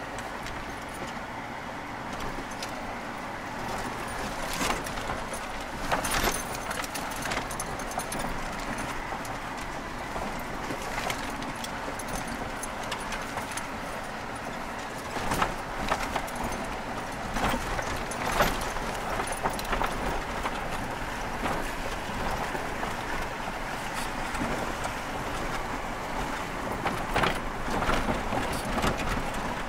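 Jeep driving over a rough gravel trail, heard from inside the cab: steady engine and tyre noise, with loose rattling and sharp knocks from the body and suspension as it hits bumps, several jolts louder than the rest.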